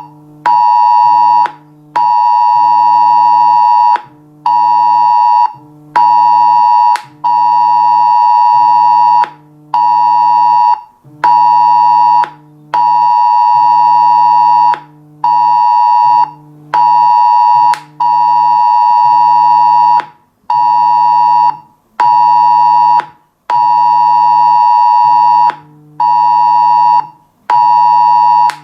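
Smartphone emergency alert tone sounding for a test warning: a loud, piercing tone near 1 kHz that pulses on and off in a repeating long-short-short rhythm with brief gaps between the blasts.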